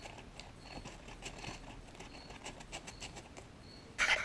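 Small mixing stick scraping and stirring two-part epoxy on a piece of cardboard: soft, irregular scratching, with a louder scrape near the end.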